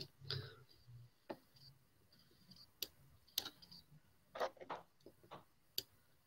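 Faint, sharp clicks and taps at irregular intervals, with several close together a little past four seconds in, over a faint low hum.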